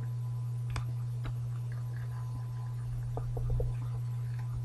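Steady low electrical hum, with a few faint clicks and taps.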